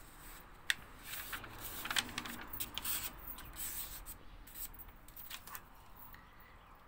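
A sheet of paper rustling and crinkling as it is folded and handled, with scattered small clicks and taps.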